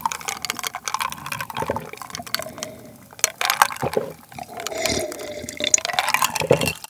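A person drinking from a glass, recorded close up: wet sips and swallowing gulps with small mouth clicks.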